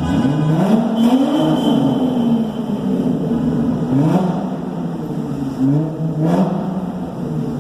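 Audi Cabriolet engine revving through a straight-piped exhaust with a glass pack and cherry bomb muffler, its note climbing and dropping back several times.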